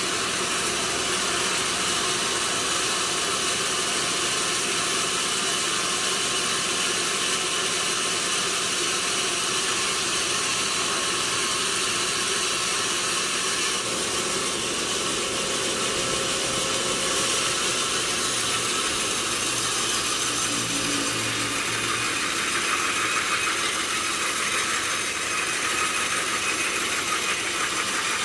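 Sawmill machinery running steadily, a continuous mechanical noise that sits mostly in the upper range.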